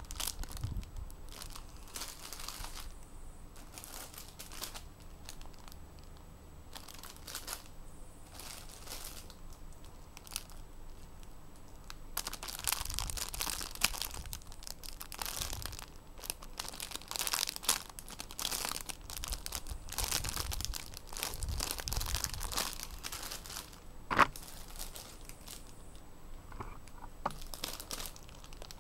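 Clear plastic packaging crinkling as squishy toys sealed in it are picked up, handled and set down, in irregular bursts that are busiest in the middle stretch. A single sharp click stands out about two-thirds of the way through.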